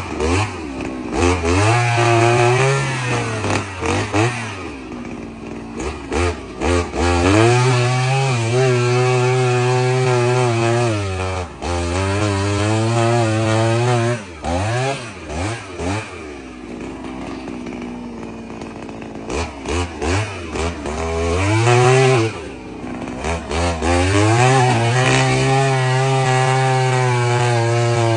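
Two-stroke petrol engine of a Kamatsus KM 44 earth auger, revved up repeatedly. Each rev-up is held high for a few seconds, then drops back to a low idle, with quick throttle blips in between.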